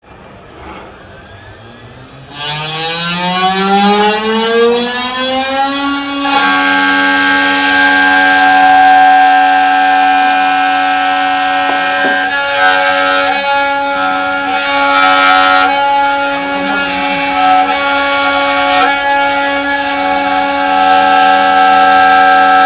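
CNC router spindle spinning up: a whine rising in pitch for about five seconds, then holding a steady high whine at full speed. A loud hiss runs alongside it and swells and eases from time to time.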